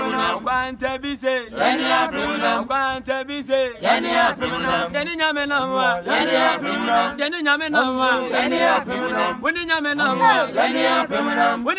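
A small choir of men and women singing together, unaccompanied, in phrases that rise and fall.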